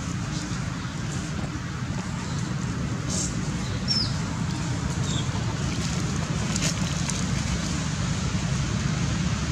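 Steady low outdoor rumble, with two short high chirps about four and five seconds in and a few faint ticks.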